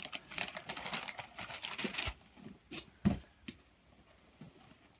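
Wrapping paper crinkling and tearing for about two seconds as a present is unwrapped. A few soft knocks follow, with a low thud about three seconds in.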